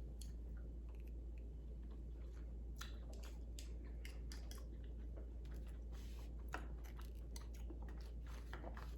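A person chewing food close to the microphone: small, irregular crunches and wet mouth clicks over a steady low hum.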